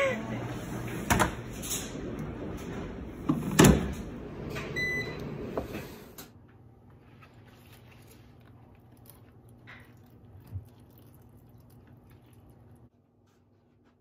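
A few knocks and handling clatter over a low hum, with a short electronic beep about five seconds in. Then faint room tone that cuts to silence near the end.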